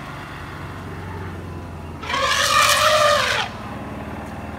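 An African elephant calf trumpets once, about two seconds in: a loud, brassy call lasting about a second and a half. It is an excited call during rough play.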